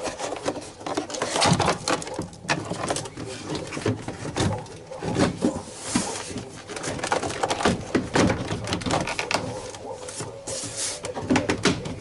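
Parts of a car door being handled and fitted: a steady run of small knocks, clicks and rubbing of plastic and metal.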